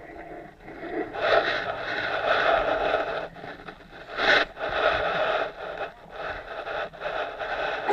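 Scraping and rustling close to the microphone as a crawling baby's hands and body move over the rug right by the camera, in uneven bursts with a sharper knock about four seconds in.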